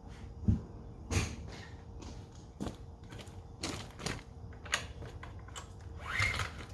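Irregular clicks and knocks of equipment being handled, with a heavier thump about half a second in and a short squeak near the end.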